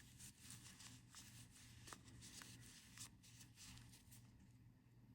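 Faint handling sounds of small watch parts: light rustling with a few small clicks, fading out after about four seconds.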